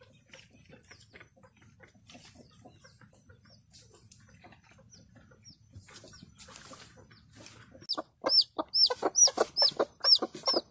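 Hens clucking faintly as they forage. About eight seconds in, a newly hatched chick starts peeping loudly and over and over, about three high, arching peeps a second, mixed with the broody hen's lower clucks.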